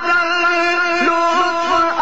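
Male voice singing a naat, holding long drawn-out notes that bend slightly in pitch.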